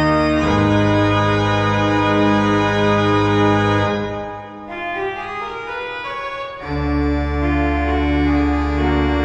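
Organ postlude closing the service: sustained full chords over a low pedal bass. About four seconds in, the bass drops out and a quieter passage plays for a couple of seconds before the full chords return.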